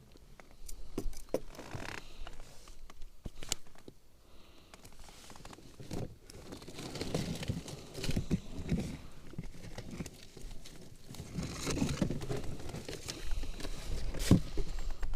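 Irregular handling noises in a small boat: scattered clicks, knocks and rustling, with a sharp click about a second before the end.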